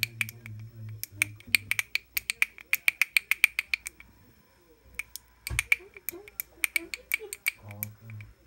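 Small toy pellet drum on a wooden stick, twirled by hand so its beads strike the drumheads: quick, evenly spaced rattling clicks, about six a second, with a pause of about a second in the middle before they start again.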